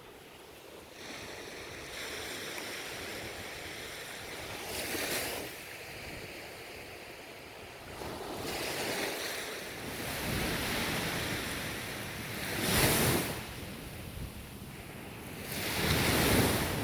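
Ocean waves breaking and washing up the shore in slow surges every three to four seconds, the loudest breaks about 13 and 16 seconds in.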